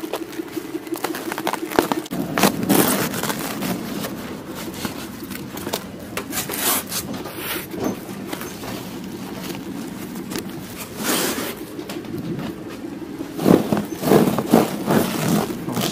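Scraping, rubbing and irregular knocks of a large stretch-film-wrapped glass aquarium being pushed and slid into a van by hand, with a louder cluster of knocks near the end.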